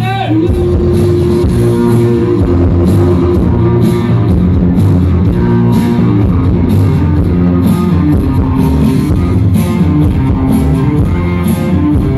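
Loud dance music played through a DJ's sound system, with guitar, bass and drum kit keeping a steady beat.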